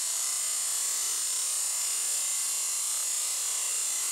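High-pressure water jet from a pressure washer lance hissing steadily as it blasts against a plastic cola bottle, with spray spattering off.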